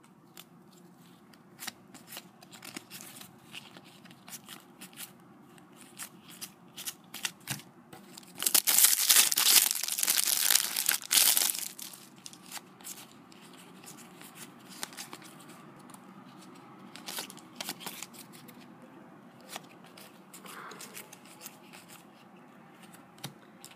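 A Match Attax trading-card foil packet torn open and crinkled, loudest for about four seconds starting some eight seconds in. Scattered light clicks of cards being handled and flicked come before and after.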